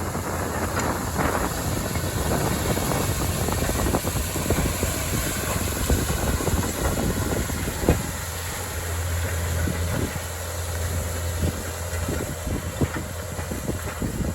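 Heavy farm machinery's diesel engine running steadily, heard from inside the cab: a constant low drone with scattered rattles and knocks.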